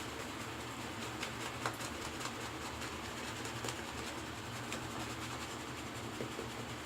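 Thäter badger shaving brush working up lather from a soap, a soft, steady swishing with a few faint clicks. The lather is running thin from too much water in the brush.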